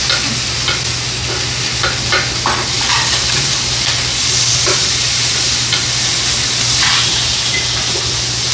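Food sizzling steadily in a frying pan, with scattered light clicks of chopsticks or tongs against the pan.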